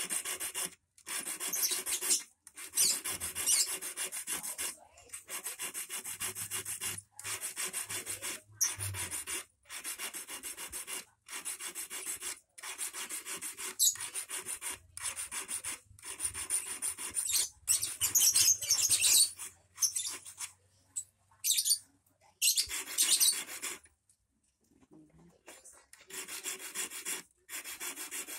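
Thin hand file rasping back and forth on the end of a 2.5 mm stainless-steel wire, shaping an eel hook. It comes in runs of quick strokes about a second long with short pauses between them, and there is a quieter stretch about two-thirds of the way through.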